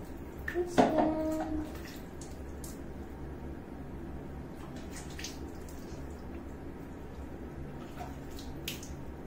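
Water poured from a plastic dipper over a newborn monkey, splashing and running off into a plastic bucket below, with a short humming tone about a second in. After that, only scattered small drips and taps over a steady low hum.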